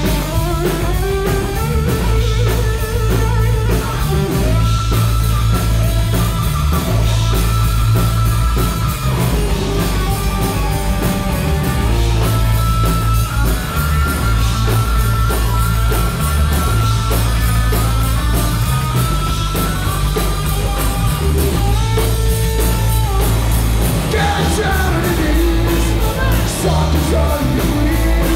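Live rock band playing loud, guitar-driven rock: electric guitar, bass guitar and a drum kit, with singing, recorded raw through a phone's built-in microphone.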